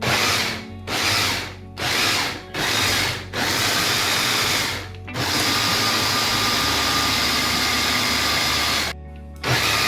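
Small countertop blender blending a thick avocado and yogurt dressing: pulsed in five short bursts, then run steadily for nearly four seconds, with one more brief pulse near the end.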